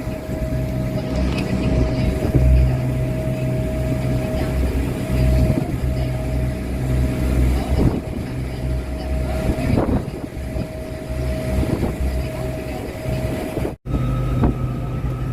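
Boat engine running steadily with a constant low drone and a faint steady whine, cut off briefly about fourteen seconds in.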